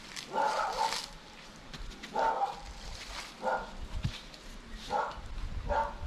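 A dog barking several times, about five short barks at irregular intervals.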